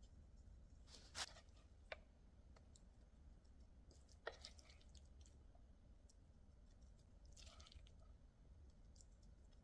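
Near silence with a few faint, short taps and clicks of food being handled: tofu slices set into a stainless steel pot, then seasoned minced pork pushed off a pan with a wooden spoon. The sharpest tap comes about a second in and another about four seconds in.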